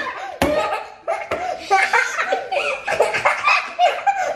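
Two young boys laughing, in short repeated bursts of giggling and belly laughter, after a sharp click about half a second in.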